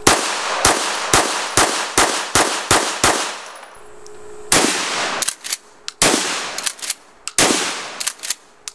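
Semi-automatic pistol firing rapidly, about eight shots in three seconds. After a short pause, a pump-action shotgun fires a string of shots, with smaller sharp clacks in between.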